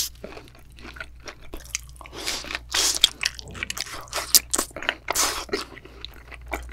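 Close-miked wet chewing of a thick slice of raw yellowtail sashimi coated in red pepper sauce: irregular moist smacks and clicks of the mouth and lips. A loud wet sound at the very start as the slice is taken into the mouth.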